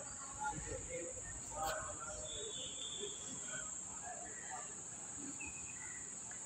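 Steady high-pitched insect drone, with a few faint bird chirps over it.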